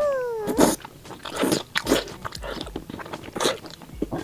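Close-miked mouth sounds of eating a whole braised pork large intestine: biting, sucking and wet chewing, with irregular smacks and clicks. A short falling tone comes right at the start.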